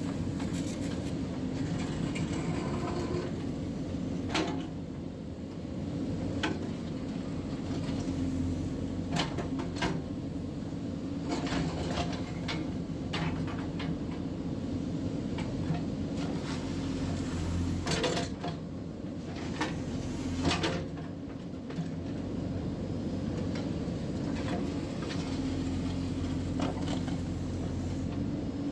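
JCB 3DX backhoe loader's diesel engine running steadily under work, with irregular metallic clanks and knocks from the machine every second or two.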